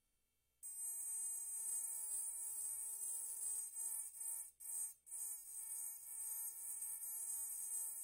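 Electric pen-style engraving handpiece running as a high-pitched whine while its bit grinds lettering into a glass, with faint scratchy grinding under the whine. It starts about half a second in and cuts out briefly a couple of times around the middle.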